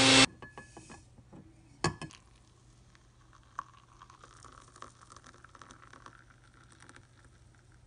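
Electric blade coffee grinder whirring briefly, then cutting off. A few clicks about two seconds in, then a faint steady trickle of water poured from a gooseneck kettle onto ground coffee in a bowl, stopping about six seconds in.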